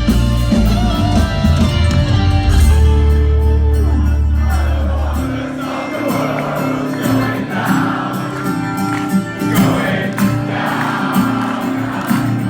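Rock band playing live: a full, heavy passage with strong bass, which drops out about five seconds in, leaving sustained chords and many voices singing together.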